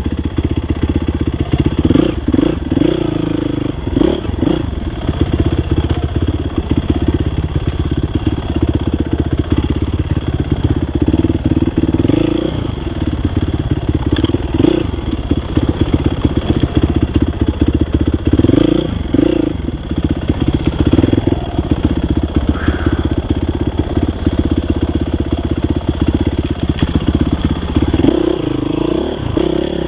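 Dirt bike engine running hard on a trail ride, revving up and easing off several times as the throttle is worked.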